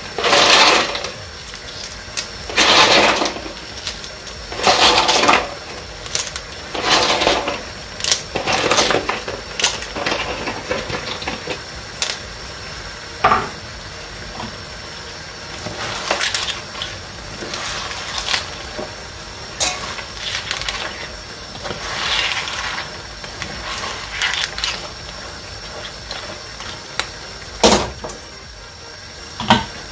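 Clams clattering shell on shell as they are taken by the handful from a plastic bowl and dropped into a wide pan of paella: a rattle of shells every two seconds or so at first, then sparser clicks, and a sharp knock near the end.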